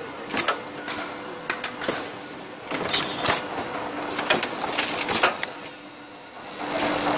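Electro-hydraulic toe lasting machine working the toe of a shoe upper over the last: a run of sharp mechanical clicks and clacks from its pincers and wipers clamping, with a hum that comes and goes and a stretch of rushing noise about three to five seconds in.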